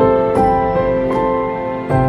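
Instrumental background music: held chords with new notes coming in about every half second.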